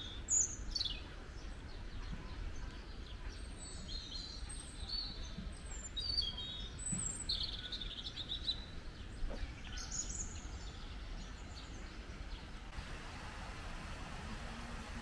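Songbirds chirping and calling in short high phrases over a steady low background rumble. The bird calls stop near the end, leaving an even hiss.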